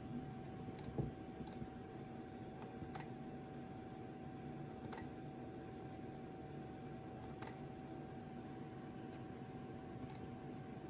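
Sony RX100-series compact cameras' shutter buttons pressed and shutters firing: single short, sharp clicks every second or few. A low thump about a second in.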